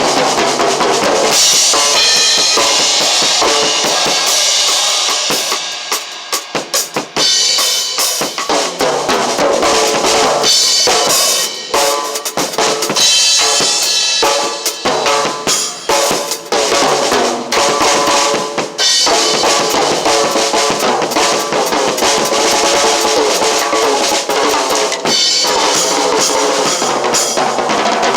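Drum kit being played, with kick, snare and rimshot hits, over music with sustained pitched tones. About six seconds in the playing thins to a few separate hits before the full beat comes back.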